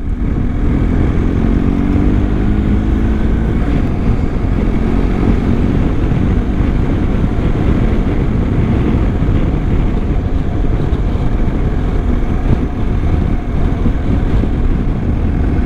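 BMW R1250 boxer-twin motorcycle engine running on the road, mixed with wind rush. The engine note climbs over the first few seconds as the bike accelerates.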